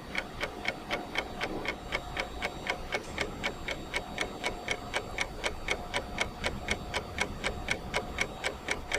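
Steady, rapid ticking, about four to five evenly spaced ticks a second, like a clock mechanism.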